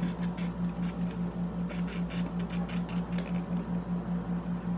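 Latex modelling balloons rubbing and squeaking in short scratchy bursts as a hand grips and turns a balloon goat sculpture, over a low hum that pulses about six or seven times a second.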